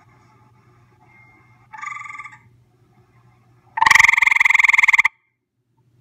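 Grey tree frog calling at close range: a short, quieter trill about two seconds in, then a loud, fast-pulsed trill lasting just over a second that cuts off suddenly.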